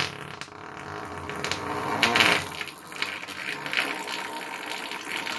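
A long, sputtering fart, rough and irregular, swelling louder about two seconds in and again near four seconds.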